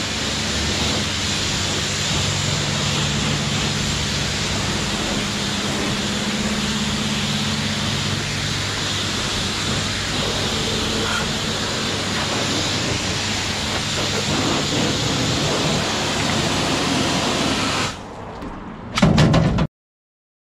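Jet wash lance spraying high-pressure water onto a motorcycle: a steady, loud hiss with a low hum underneath. Near the end the spray drops away, a short loud burst follows, and the sound cuts off.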